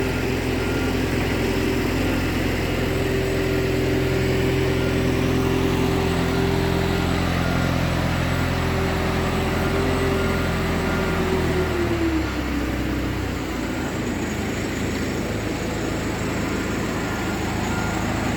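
An engine running steadily, then slowing: about twelve seconds in its pitch slides down and its low hum fades, leaving a weaker, rougher running noise.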